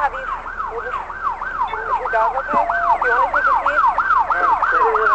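Emergency vehicle siren sounding a fast yelp, its pitch sweeping up and down about three times a second. Near the middle the sweeps cross as if a second siren overlaps, and there is a brief steady tone and a single knock.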